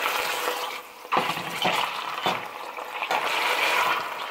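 Boneless chuck roast sizzling in rendered grease in a stainless steel pot as it is turned over with a fork, browning once the braising liquid has cooked off. The sizzle swells and fades, dipping briefly about a second in.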